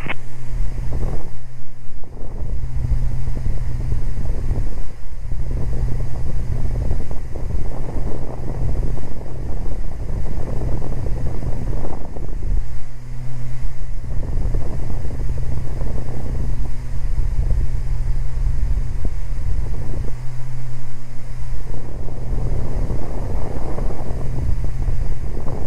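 Cabin drone of a Beechcraft Baron G58's twin Continental six-cylinder engines and propellers in steady cruise: a constant low hum under a rushing noise that swells and eases every few seconds.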